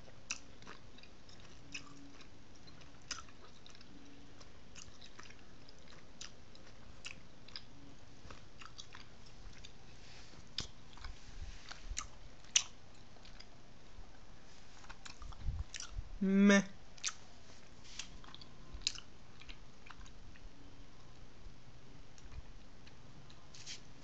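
Chewing a Mamba Sour fruit chew: scattered soft mouth clicks and smacks, with one short hummed 'mm' from the taster about sixteen seconds in, the loudest moment.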